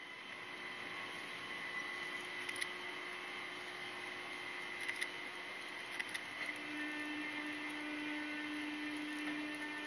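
SNCF Fret electric locomotive moving slowly, giving a steady electric whine and hum made of several held tones. A few sharp clicks come around the middle, and a lower tone joins about two-thirds of the way through.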